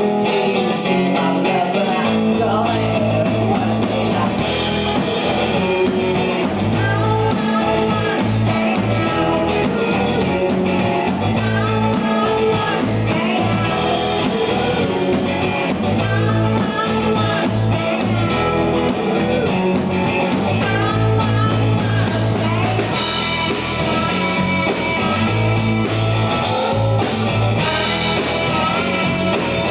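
A rock band playing live: two electric guitars, electric bass and a drum kit, with a male lead singer. The cymbals come in brighter about four seconds in and again after about twenty-three seconds.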